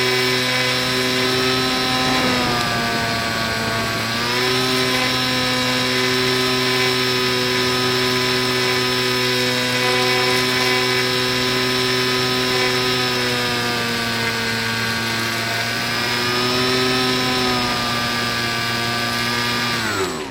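Electric motor and 7x5 propeller of a small RC plane running at a steady pitch, dropping briefly about two seconds in and coming back up about two seconds later, easing off again near the end of the middle stretch and rising once more. Right at the end the pitch falls sharply as the throttle is cut.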